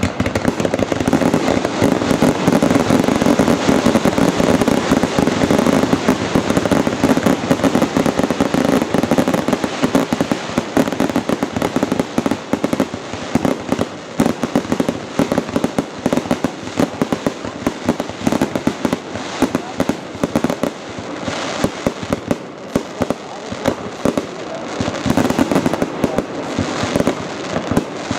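A fireworks display firing a dense, continuous barrage of bangs and rapid crackling. The barrage thins a little a few seconds before the end, then builds again.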